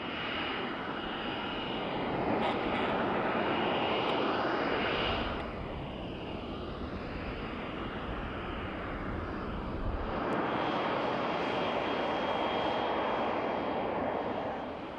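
Jet engine of the Boeing X-45 unmanned aircraft running: a continuous loud rush with a high, steady whine, and wavering pitch glides in the first few seconds. The sound changes abruptly about five and again about ten seconds in.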